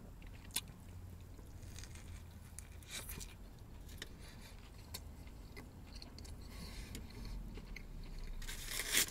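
A person chewing and biting into a bacon cheeseburger close to the microphone, with small wet mouth clicks over a low steady hum. There is a brief louder rustle near the end.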